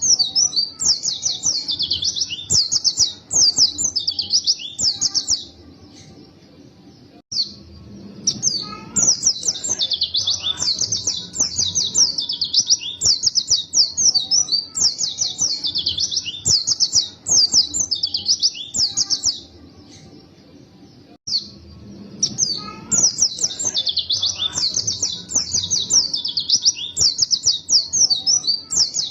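White-eye (pleci) in full song: long runs of fast, high twittering phrases, breaking off twice for about two seconds each.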